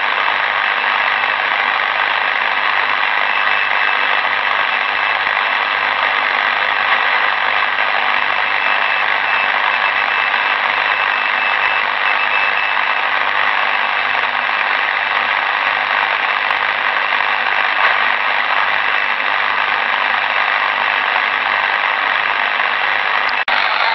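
Steady hiss of band noise from a Tecsun portable shortwave receiver in SSB mode, tuned to 3518 kHz on the 80-meter amateur band with no station readable. A faint thin steady tone sits in the noise for several seconds, and the sound briefly cuts out with a click near the end.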